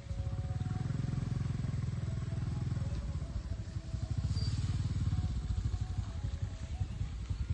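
Low rumble of a nearby motor vehicle's engine running, made of rapid even pulses.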